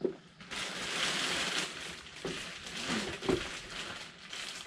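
Plastic bag rustling and crinkling as it is handled and pulled out of a wooden crate, with a few light knocks about two and three seconds in.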